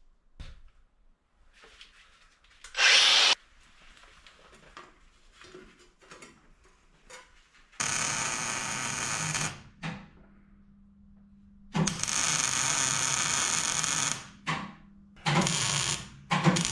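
Handheld power tool running in bursts during sheet-metal work: a brief loud burst about three seconds in, then runs of about two seconds starting about eight and twelve seconds in, and two shorter runs near the end.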